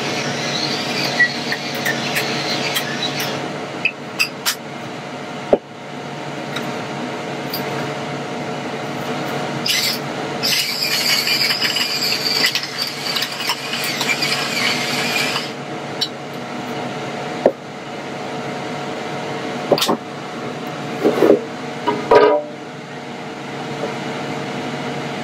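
Ninja dual-zone air fryer running with a steady fan hum and a hiss that comes and goes. Near the end a few clunks sound as a drawer is slid out.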